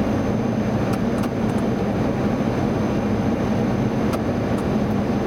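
Steady airliner cockpit noise on final approach: a constant rush of airflow with a low engine hum. A few faint clicks come through.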